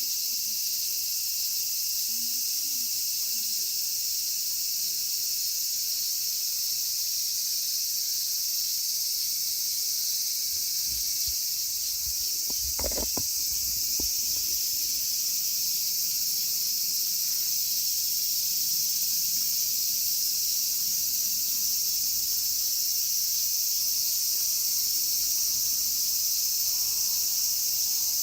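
Cicadas buzzing, a loud, steady, high-pitched chorus that never lets up. A single brief low knock is heard about halfway through.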